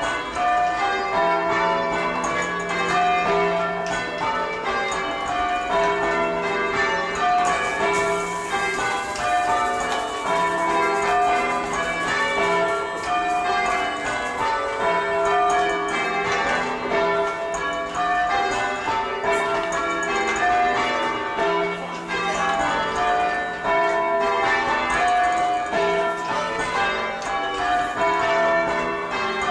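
Church tower bells change ringing: a steady run of overlapping bell strokes heard from the ringing room below. The sixth bell has lost its clapper and stays silent, so a stroke is missing from each change.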